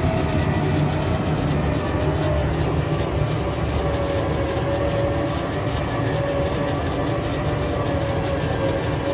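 A vehicle's motor running steadily: a low rumble with a steady whine that drops slightly in pitch about four seconds in.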